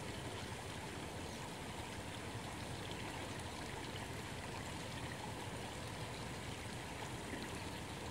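Steady, even background hiss with no distinct events in it, like open-air ambience or a light rush of water or wind.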